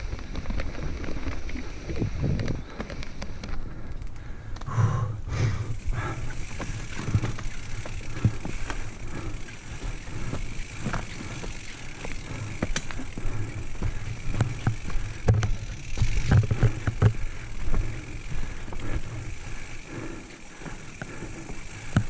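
Santa Cruz Nomad full-suspension mountain bike descending rocky dirt singletrack: tyres crunching over stones and the bike rattling with many irregular knocks and clicks, over a low rumble.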